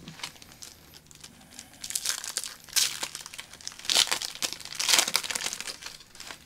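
Trading card pack wrapper being torn open and crumpled by hand. Faint handling at first, then several sharp crinkling bursts from about two seconds in.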